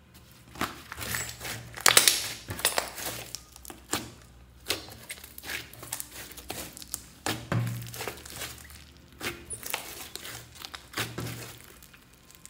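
Hands squeezing and kneading a lump of slime filled with tiny foam beads: a dense, irregular run of clicks, pops and squishes, loudest about two seconds in and dying away near the end.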